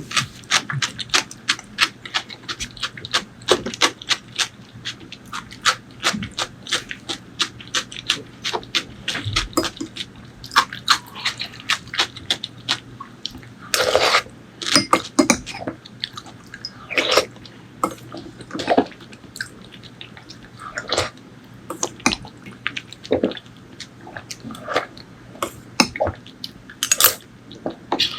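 Close-miked wet eating sounds of someone chewing pork leg curry with rice: quick sticky smacks and clicks, many a second at first, then slower, with a longer squelch about halfway through.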